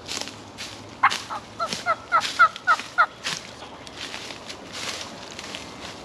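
A wild turkey call: a run of about eight short yelping notes, roughly four a second, lasting about two seconds. Short crunching sounds come about every half second underneath.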